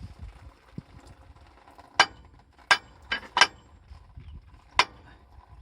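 Hammer blows on steel, five sharp metallic strikes at uneven intervals with a short ring after each, knocking at a seized cylinder liner in a KamAZ engine block to work it loose.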